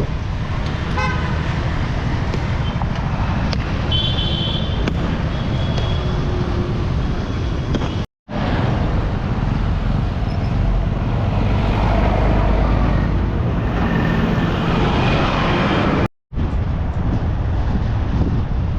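Road traffic with strong wind rumbling on the microphone, and vehicle horns honking a few times in the first half. The sound cuts out briefly twice.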